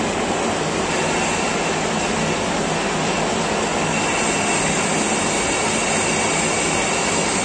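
Belt-driven metal lathe running steadily, its chuck spinning while it machines a metal part.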